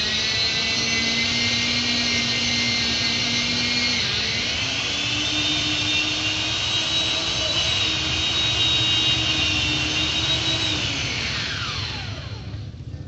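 Chainsaw engine running at high revs, its pitch stepping up about four seconds in, then winding down near the end.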